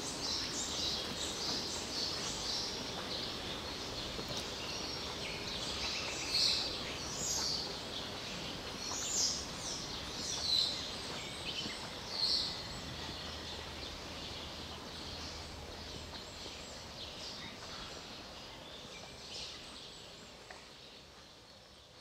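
Several wild birds singing and calling over a steady background hush, with a few louder calls near the middle; the sound fades out toward the end.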